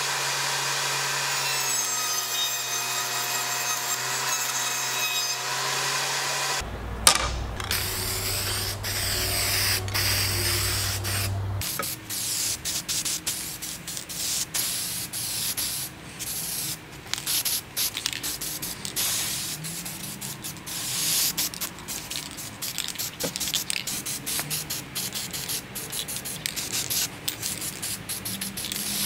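A table saw running for the first few seconds, then a low hum broken by one sharp knock about seven seconds in. After that an aerosol spray can hisses in many short bursts.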